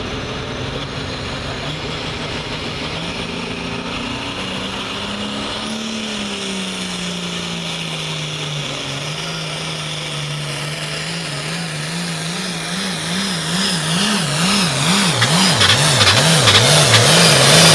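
Diesel engine of a 466 hot farm pulling tractor, a red International, running at the start line and then pulling hard down the track under load. From about 12 s in it grows steadily louder, and its note wobbles up and down about twice a second.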